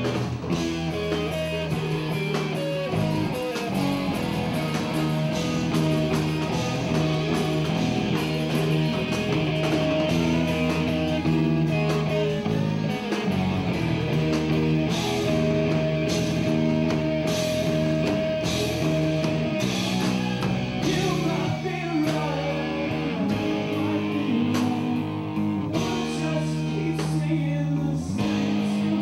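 Rock band playing live, with electric guitar and bass guitar.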